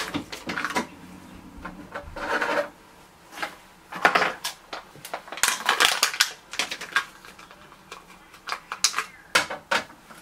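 Ink cartridge plastic packaging being opened and handled by hand: irregular crinkles, rustles and clicks in short bursts, the loudest about four and six seconds in.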